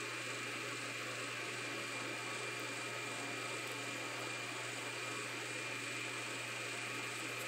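Steady hiss and low hum, like a running fan or small motor, with a thin, constant high whine over it.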